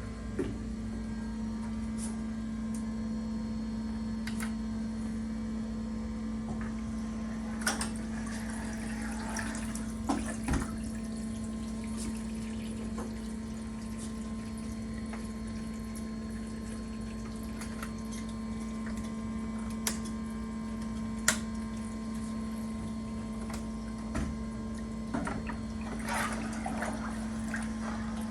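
Steady hum from an immersion cooling tank's equipment, with scattered clicks, drips and small splashes of coolant as a server is handled and RAM modules are fitted.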